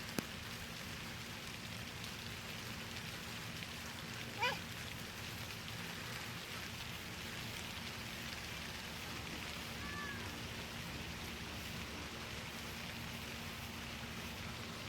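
Steady rain falling. About four and a half seconds in there is one short, high-pitched call, and near ten seconds a faint brief chirp.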